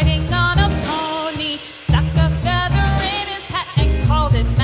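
Background music: an upbeat pop-style song with a sung melody over a steady bass and drum beat.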